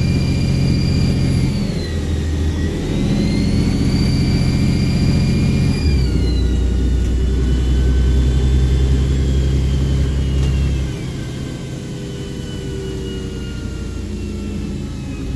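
Volvo Olympian double-decker bus engine under load, with a high turbo whistle over it. The whistle sags and climbs back with the engine's gear changes, then falls away after about six seconds, and the engine eases off about eleven seconds in.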